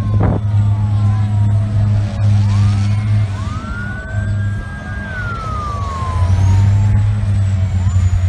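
Emergency sirens wailing, several overlapping tones rising, holding and falling slowly, over a steady low engine drone.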